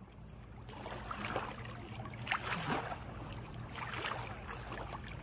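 Small lake waves lapping and splashing against a rocky shoreline in irregular soft washes, over the steady low hum of a distant motor.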